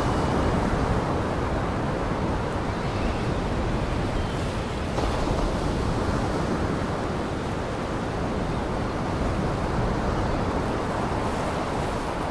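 Steady, even rushing noise, heaviest in the low end, with no distinct events, music or speech.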